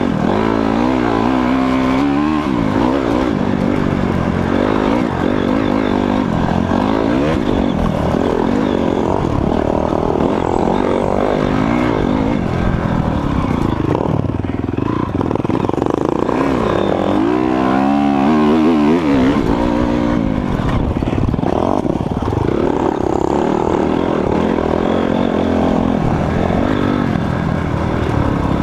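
Dirt bike engine under load on a trail ride, its revs rising and falling repeatedly as the rider works the throttle, with a strong surge about two seconds in and another past the halfway point.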